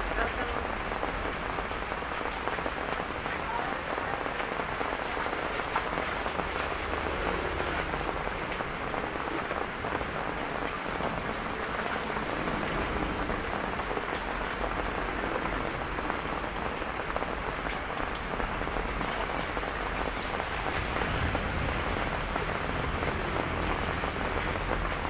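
Steady typhoon rain pouring onto wet hard ground and surfaces, an even rushing patter without letup.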